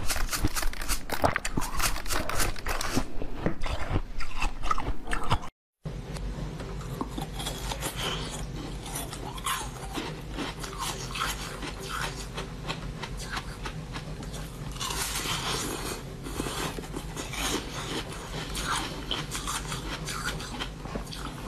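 Close-miked biting and crunching into frozen snacks, with dense crackly clicks for the first five seconds or so. After a brief dropout there are slower bites and chewing over a steady low hum.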